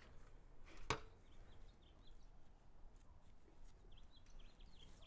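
A single sharp snip about a second in: orange-handled pruning snips closing through a succulent's woody stem. Faint bird chirps sound in the background.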